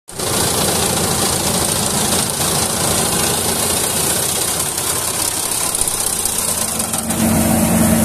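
Yanmar rice combine harvester working through standing rice: its diesel engine runs under load with a steady drone, overlaid by the dense mechanical noise of the cutting and threshing gear. About seven seconds in, the sound grows louder and a steady hum comes up as the machine draws near.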